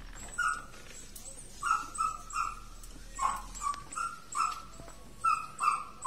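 A dog barking repeatedly: a dozen or so short barks at irregular intervals.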